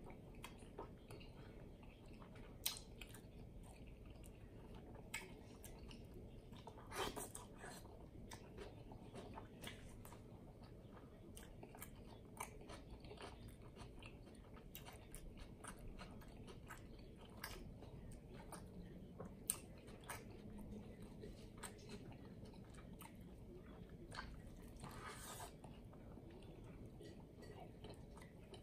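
Triple bacon cheeseburger being chewed close to the microphone: a steady run of soft mouth clicks and smacks, a few of them louder.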